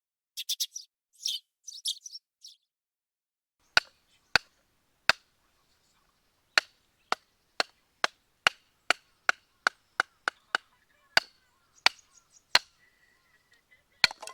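Batoning firewood: a wooden baton knocks again and again on the back of a hatchet blade, driving it through a log. About eighteen sharp knocks start a few seconds in and speed up to about three a second in the middle. A few brief high chirps come before them.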